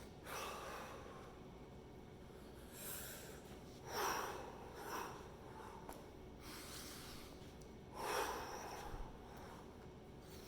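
A person breathing deeply and audibly while exercising, with a noisy breath every second or two; the loudest come about four and eight seconds in.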